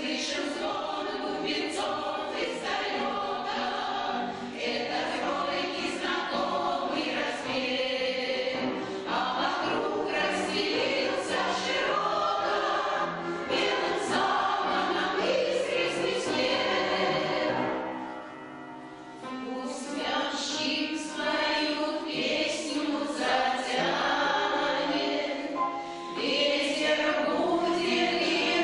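Amateur choir of older singers performing a song together; the singing begins right at the start after a short silence and eases briefly about two-thirds of the way through.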